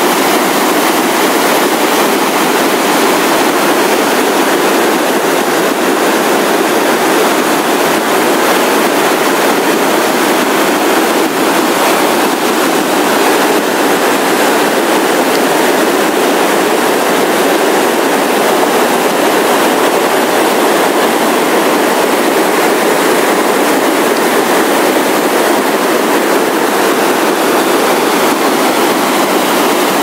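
A waterfall and whitewater rapids rushing loudly and steadily, one continuous sound of churning water with no let-up.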